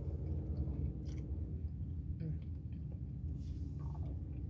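A person chewing a mouthful of a fried chicken snack with the mouth closed, with a few faint wet clicks, over a steady low rumble inside a car.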